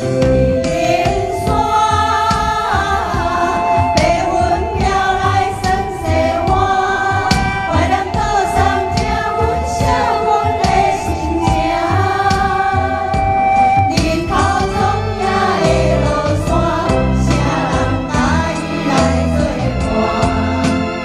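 Voices singing a song with instrumental accompaniment and a steady beat.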